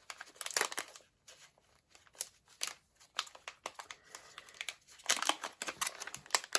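Small clicks and taps of nail supplies being handled, then packaging crinkling steadily from about five seconds in.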